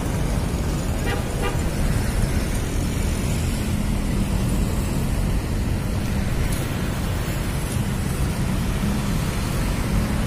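Steady road traffic noise: a low, even rumble with no breaks.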